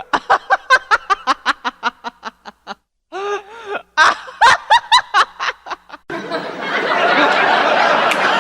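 Laughter: one laugh of quick, rhythmic 'ha' pulses that trail off, then a second laughing fit, and about six seconds in a group of people laughing together.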